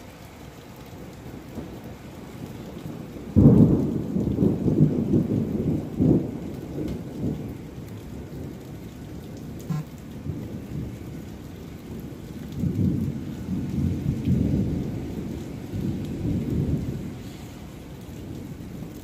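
Thunder over steady rain: a sudden loud clap about three seconds in that rolls on for several seconds, then a second long rumble later on.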